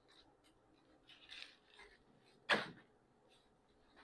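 Faint dry rustling of papery onion skin being peeled off by hand, with one short sharp sound about two and a half seconds in.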